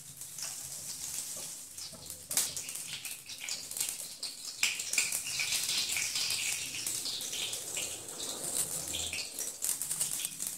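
Mustard and cumin seeds spluttering in hot oil: irregular crackling and popping over a steady sizzle, with a few louder pops.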